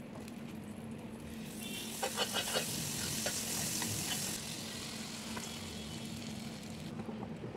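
Butter sizzling as it melts on a hot flat nonstick griddle, with a few light clicks about two seconds in. The sizzle is loudest in the middle, then carries on more softly.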